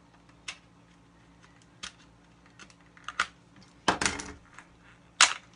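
Sealed Tech Deck fingerboard package being pried and torn open by hand: scattered clicks and crackles, a dense burst of crackling about four seconds in, and a sharp snap just after five seconds.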